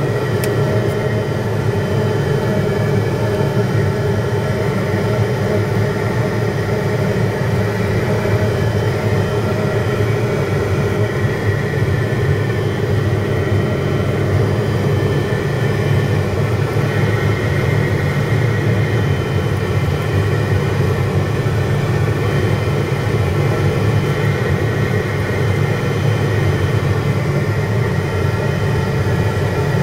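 Cabin noise of a Piper JetProp in flight: the steady drone of its Pratt & Whitney PT6A turboprop engine and propeller, mixed with airflow noise, heard from inside the cabin.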